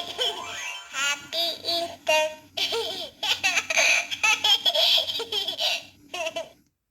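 Sound N Light animated plush sheep toy playing a recorded laughing voice clip through its small speaker at the end of its song: several short, high, wobbling bursts of laughter, stopping shortly before the end.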